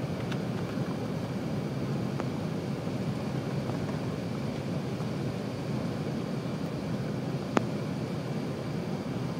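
Steady cabin roar inside an Airbus A380-861 on approach with its flaps extended: engine and airflow noise heard from a window seat over the wing, from its Engine Alliance GP7200 engines. A single sharp click stands out about seven and a half seconds in.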